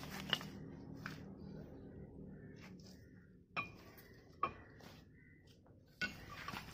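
Sharp metallic clinks and taps, about five spread over the stretch, as new disc brake pads and their metal parts are handled and fitted into the brake caliper.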